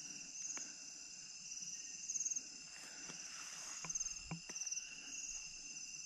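Crickets and other insects chirping in a steady chorus, with short pulsed trills repeating about once a second. A few faint clicks come near the middle.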